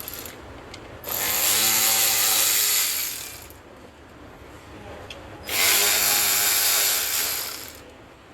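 Cordless power tool spinning out the door panel's Torx bolts, running twice for about two seconds each with a steady whine.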